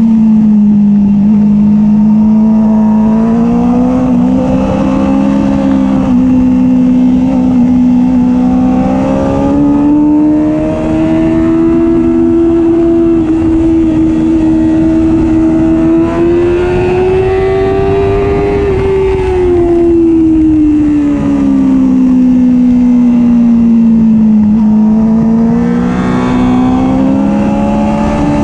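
Supersport motorcycle engine running hard at high revs under the rider, with heavy wind rush. Its pitch dips at the start, holds, then climbs slowly to a peak about two-thirds of the way through. It then falls away and climbs again near the end.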